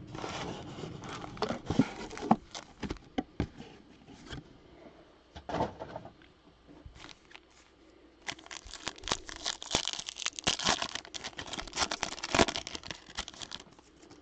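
Cardboard trading-card box flaps being opened and handled with scattered rustles and clicks, then a foil card-pack wrapper torn and crinkled, loudest for several seconds near the end.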